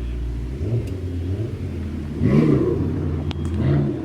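A sports car's engine running with a low steady note and blipped several times, each rev rising and falling quickly; the loudest rev comes about halfway through, with another shortly before the end.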